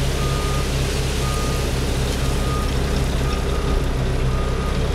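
Dump truck's diesel engine running steadily with the PTO engaged to drive the hydraulic hoist, box raised to tip a load of gravel, heard from inside the cab. Over it, a warning alarm sounds short beeps about once a second.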